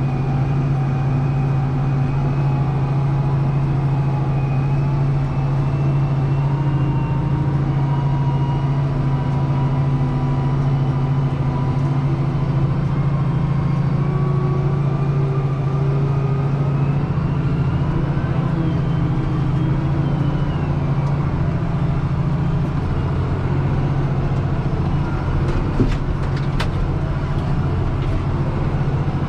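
Deutz-Fahr 6185 TTV tractor's six-cylinder engine running steadily, heard from inside the cab, with faint whining tones that drift slowly upward in pitch. A short click near the end.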